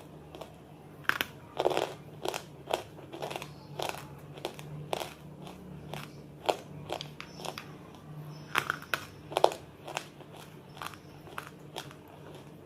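Close-up crunching bites and chewing of something crunchy, with sharp irregular crunches two or three times a second.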